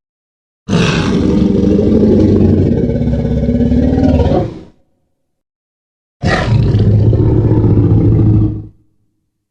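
Two Tyrannosaurus rex roars from the Jurassic Park films' sound effects. A long roar of about four seconds comes first, then, after a gap of silence, a shorter one of about two and a half seconds. Each starts abruptly, bright at the onset, then settles into a deep bellow before dying away.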